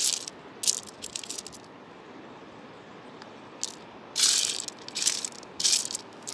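Wet river pebbles and gravel clattering and crunching as a hand rakes and spreads them, in several short bursts with quiet gaps between.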